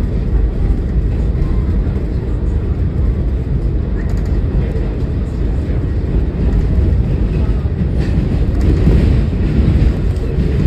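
A New York City subway Q train car running along the track: a steady, loud, low rumble of the moving train.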